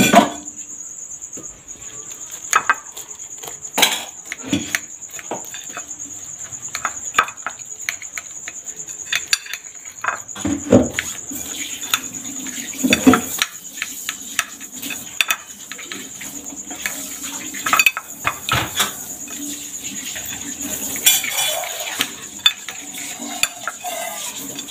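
Metal spoon clinking and scraping on a plate of noodle omelet, in scattered sharp taps, over a steady high-pitched trill.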